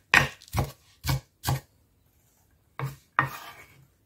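Kitchen knife chopping spring onion on a wooden cutting board: four crisp chops about two a second, then a pause and two more knocks near the end, the second trailing off in a short scrape.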